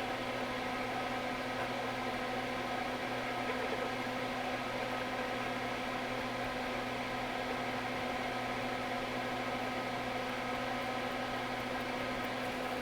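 Steady electrical hum of a small motor or fan running, with a constant low drone and several fixed tones over a light hiss.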